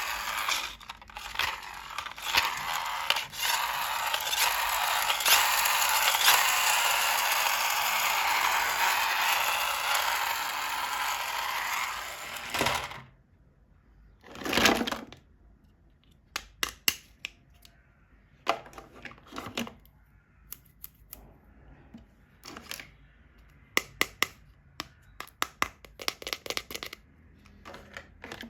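Unboxing handling sounds: about thirteen seconds of continuous rustling and scraping of packaging, then a brief swish and a string of light clicks and taps from small plastic toy parts.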